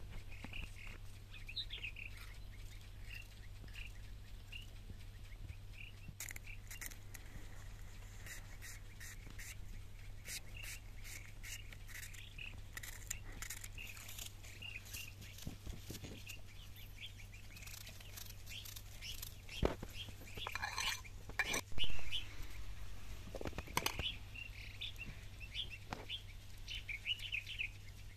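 Small birds chirp over and over, while a knife cuts an onion held in the hand over a salad bowl in quick, crisp clicks for several seconds. There is one louder knock about two-thirds of the way through, over a steady low hum.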